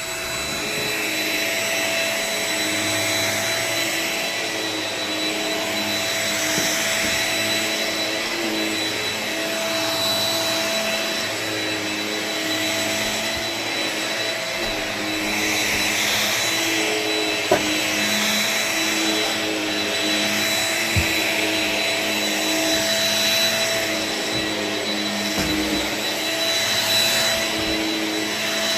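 Shark Rocket Ultralight Upright corded stick vacuum running steadily with a high whine, its tone wavering slightly as it works. A single sharp tick sounds about 17 seconds in.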